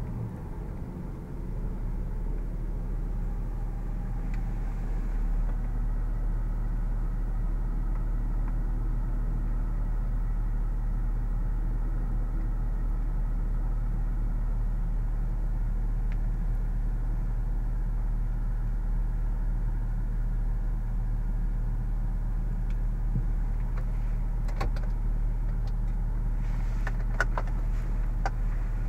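Jaguar XF's supercharged 3.0-litre V6 idling steadily, heard from inside the cabin, its revs falling back to idle in the first second. A few sharp clicks come near the end.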